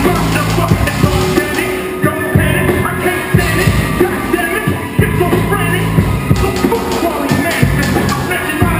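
A song with singing over a driving rock beat.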